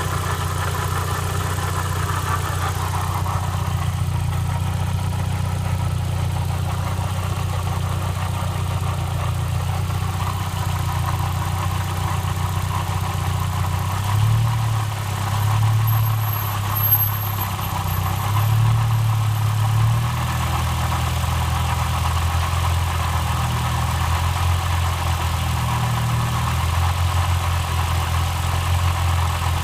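1999 Volkswagen Passat's 1.8-litre turbocharged four-cylinder engine idling steadily, with an uneven stretch of rising and falling level about halfway through. The owner hears a weird noise in it that he cannot identify.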